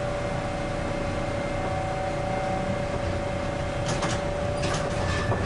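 Iyotetsu streetcar running along street track, heard from the cab: a steady low rumble with a constant hum, and a few sharp clicks in the last second and a half.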